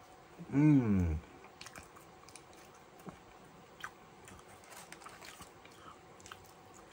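A person chewing cheese-and-sauce-topped fries close to the microphone: faint wet smacks and small crunchy clicks of the mouth. A short hum of the voice comes about half a second in.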